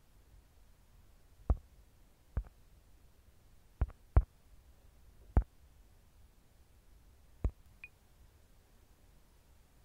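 Fingertip taps on a smartphone while typing on its on-screen keyboard: six sharp, irregularly spaced taps, two of them in quick succession near the middle. A faint short beep follows just after the last tap.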